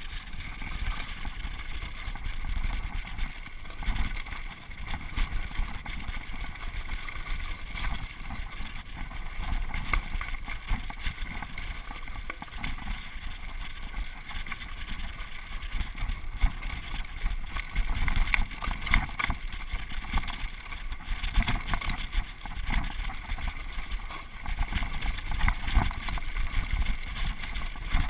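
Mountain bike rolling fast down a dirt and rock trail: wind buffeting the camera microphone over the rolling noise of the tyres, with frequent clicks and rattles from the bike over the bumps, busier in the second half.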